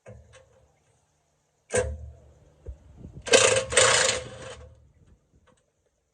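A sharp knock about two seconds in, then a cordless impact driver hammering in two short bursts as it works a 13 mm bolt loose on the transmission mount.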